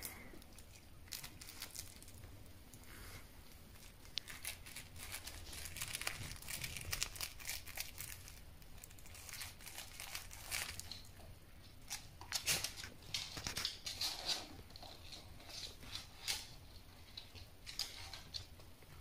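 A dog mouthing and tugging at a plush toy: the fabric rustles and crinkles in repeated short, scratchy bouts at irregular intervals.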